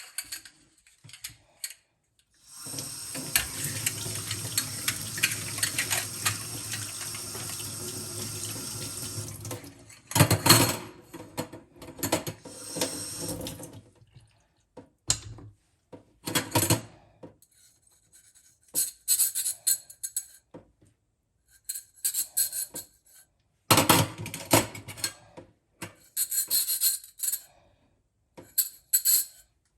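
A kitchen tap runs steadily for about seven seconds and is then turned off. It is followed by a series of short bursts of rubbing and clinking, like things being handled at the sink.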